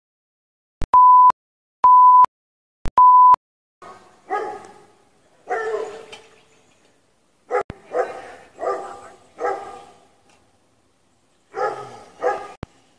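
Three loud electronic beeps on one pitch, about a second apart. After them a dog barks repeatedly in short calls.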